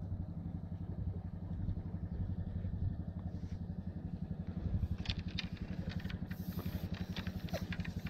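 A small engine running steadily with an even, rapid low chugging. From about five seconds in come a few light clicks and taps.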